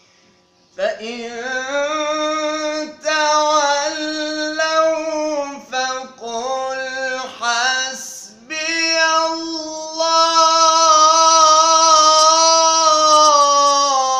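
A young man's solo voice in melodic Quranic recitation, drawing out long, ornamented notes that waver in pitch, with a few short breaks for breath and a long held note at the end.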